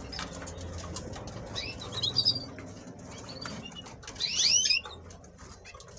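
Canaries chirping: a few short high chirps about two seconds in, then a louder run of curving, sliding chirps a little past the middle, over a low steady hum and faint rustling.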